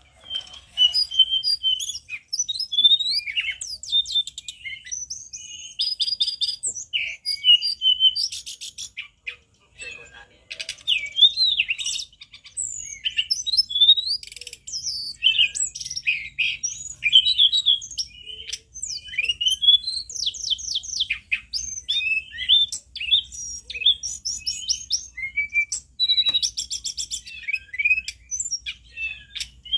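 Caged male tledekan gunung (hill blue flycatcher) in full song: a loud, near-continuous run of varied whistled phrases and slurred notes mixed with fast trills, with one short break about ten seconds in.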